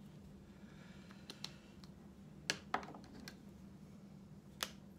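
Several sharp clicks and taps of marker handling: caps snapped on and off and pens set down on a wooden tabletop while swapping from one marker to the next. Two loud clicks come close together about halfway through and one more near the end.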